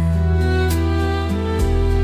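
Slow instrumental music: held low bass notes that change a couple of times under sustained higher tones, with no singing.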